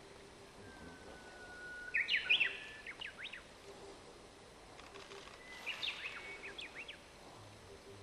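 A songbird singing twice: short phrases of quick whistled notes sweeping up and down, about two seconds in and again near six seconds, the first opening with a long, lower steady whistle.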